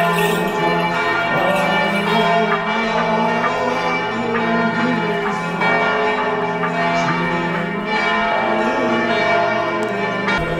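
Church bells ringing continuously, many strokes overlapping so their tones ring on together.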